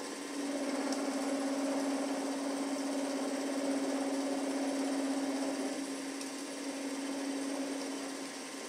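Small benchtop metal lathe running, its motor giving a steady hum that grows louder about half a second in and drops back shortly before the end, as the tool turns the steel bar in the chuck.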